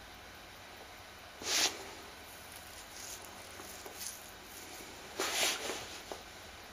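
Handling noise from a wooden guitar neck blank being moved and laid down on a workbench. Two short rustling scrapes, about a second and a half in and again about five seconds in, with a few light knocks between them.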